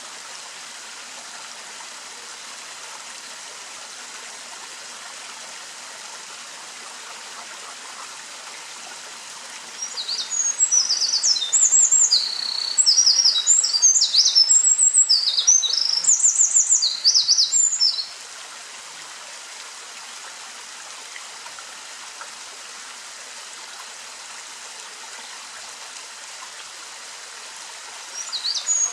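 Eurasian wren singing one long, loud song of rapid high trills and sharp notes lasting about eight seconds, starting about a third of the way in; a new song begins right at the end. A steady rushing background noise runs throughout.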